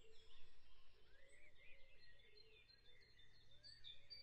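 Near silence, with faint short chirps from a bird in the background, repeated irregularly.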